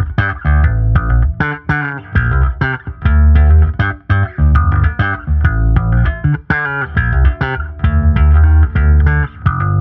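Sire U5 bass guitar with a DiMarzio Relentless pickup, played as a quick riff of short plucked notes, then one low note left ringing near the end.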